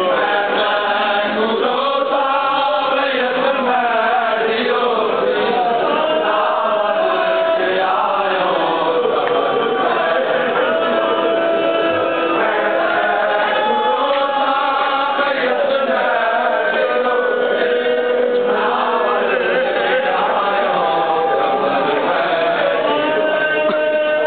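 A group of voices reciting a noha, a Shia mourning lament, in chorus: a slow, drawn-out chant with long held notes.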